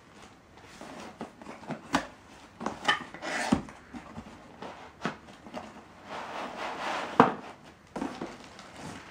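Hands handling a cardboard laptop box and the foam packing inside it: rustling and scraping of cardboard and packing with scattered knocks, the loudest knock about seven seconds in.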